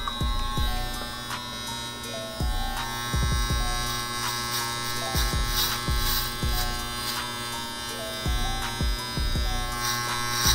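Andis Master electric hair clippers buzzing steadily as they cut short hair at the back of the head and neck, with uneven strokes as the blade moves through the hair.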